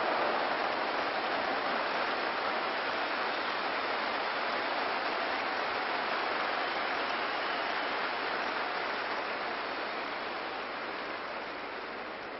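Stadium crowd cheering after a goal, an even roar that slowly dies away.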